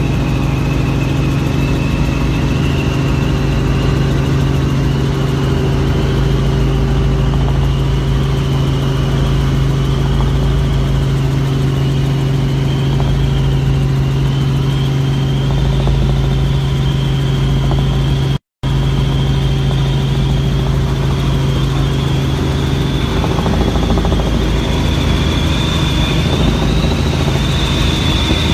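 Helicopter cabin noise: a steady loud drone with a high turbine whine that slowly rises in pitch, broken by a momentary gap in the sound about two-thirds of the way through.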